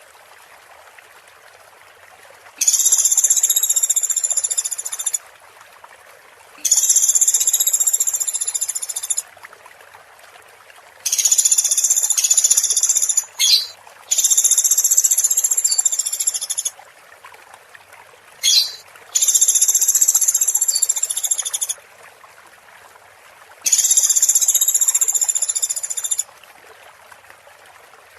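A high, buzzing animal call repeated about every four seconds, each lasting about two and a half seconds, over a steady trickle of running water. It is a looped training recording for songbirds.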